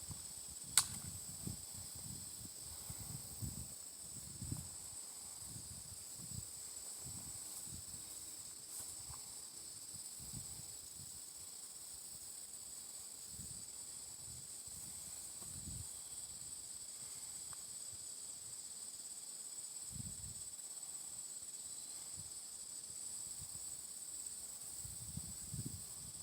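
A faint, steady, high-pitched insect trill, with a single sharp click about a second in and low, irregular rumbles of wind on the microphone.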